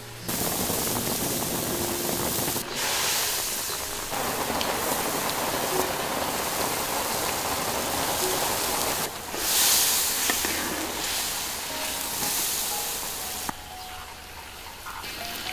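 Chili broth boiling in a large iron wok: a steady hiss that changes abruptly in level a few times.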